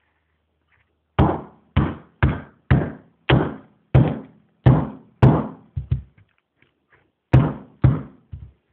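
A run of about a dozen loud, sharp knocks, roughly two a second, each ringing out briefly, with a short pause about six seconds in. They come from a hand striking a small hard object close to the microphone.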